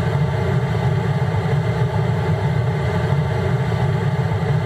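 A large stacked sound system puts out a steady, loud low bass rumble during a sound check, with no clear beat.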